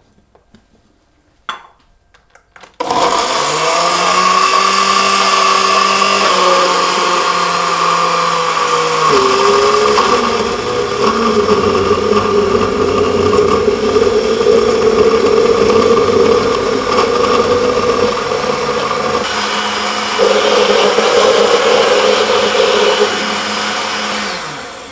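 Countertop glass-jar blender switched on after a click, its motor spinning up about three seconds in and running steadily as it purées vegetables into soup while hot water is poured in. Its pitch shifts a few times as it runs, and it winds down with a falling pitch near the end.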